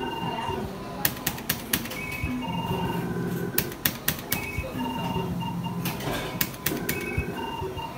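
Electronic bingo machine playing rapid rounds: short beeping electronic tunes repeat about every two and a half seconds as each round's balls are drawn, with clusters of sharp clicks between them.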